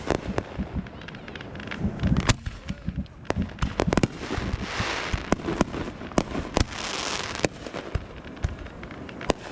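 Fireworks display: an irregular run of sharp bangs, with a spell of dense hissing crackle from about four and a half to seven and a half seconds in.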